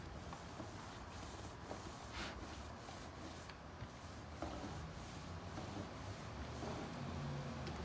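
Paint roller rolling wet paint onto wood clapboard siding: a steady rubbing swish with small scattered clicks.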